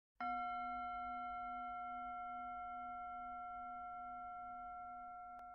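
A single struck bell tone, sounding a few pitches at once, that rings on and fades slowly.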